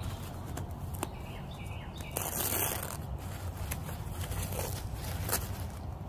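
Packaging being handled while a grille is unboxed: scattered light clicks and knocks, and a short rustle of packing material about two seconds in, over a steady low background rumble.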